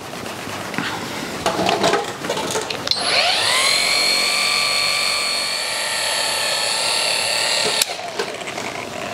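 Cordless polisher with a black finishing pad polishing a piano-black B-pillar with fine polish, the second stage of a two-stage paint correction. About three seconds in it clicks on, its motor whine rises and settles to a steady pitch, then it cuts off suddenly with a click near the end.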